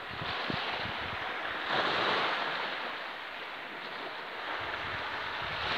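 Small sea waves washing onto a sandy shore: a steady hiss that swells about two seconds in and again near the end, with a little wind buffeting the microphone at the start.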